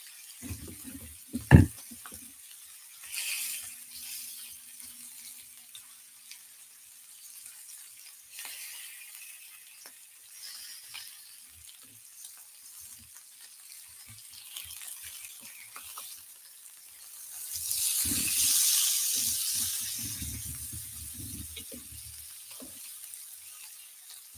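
Thick pork belly slices sizzling in an electric grill pan. There is a single sharp knock about one and a half seconds in, and the sizzling swells louder about two-thirds of the way through, with low knocks of the meat being handled.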